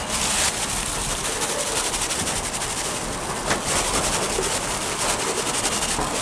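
Fish cakes deep-frying in hot oil: a steady sizzle full of rapid crackles.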